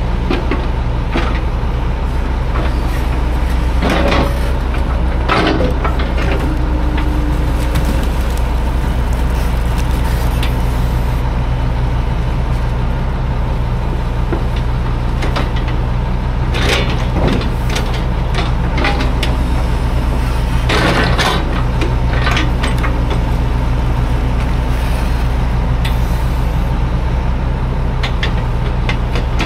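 Heavy equipment's diesel engine running steadily, with a few sharp clanks and knocks, a cluster of them about 21 seconds in.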